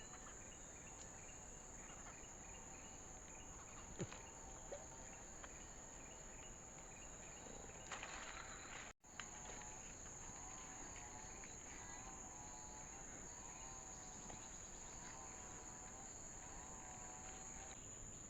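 Steady, shrill chorus of insects, one high constant tone, faint. Quieter wavering calls join it in the second half, and the sound drops out for an instant about nine seconds in.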